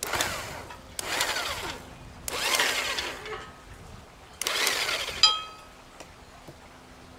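Electric drill with a bit just under an inch wide boring into a coast live oak trunk, run in four short bursts of about a second each. The motor's pitch shifts within each burst as the hole is started at an angle and then straightened. A short sharp click comes right after the last burst.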